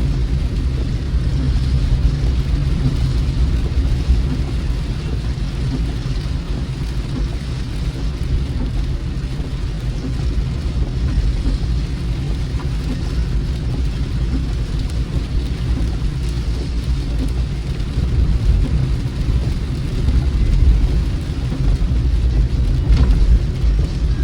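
Steady car cabin noise while driving in rain: low road and engine rumble with an even hiss of rain on the car.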